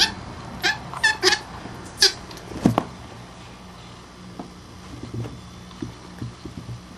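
Baby minks squealing in play: about five short, high squeaks in the first two seconds, then a single thump, then quieter scuffling.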